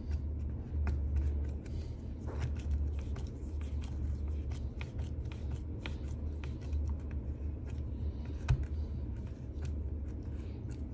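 Hex screwdriver turning and tightening screws into a plastic RC-car motor mount: small irregular clicks and scrapes of the driver and screw, with one sharper click about eight and a half seconds in, over a steady low hum.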